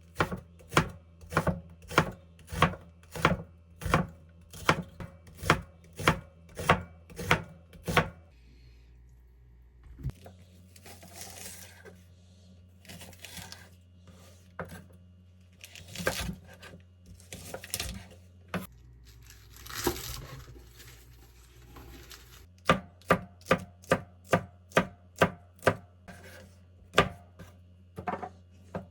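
Kitchen knife chopping on a cutting board in steady strokes, about two a second, then a pause with a few scattered knocks and rustles, then quicker chopping near the end.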